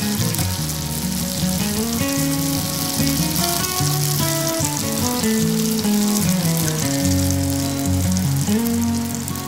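Minced mutton sizzling as it fries in a pan, a steady hiss, with upbeat instrumental background music over it.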